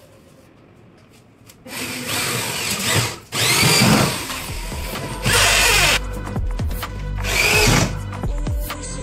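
Power drill run in about four short bursts starting about two seconds in, its whine rising and falling within the bursts, with music underneath.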